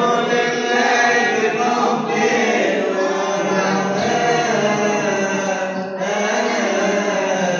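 Coptic Orthodox liturgical chant: voices singing a slow hymn in unison, with a steady low held note beneath the melody.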